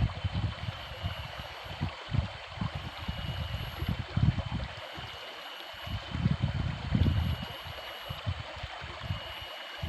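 Steady rush of flowing water, with irregular low rumbles and a thin, steady high tone above it.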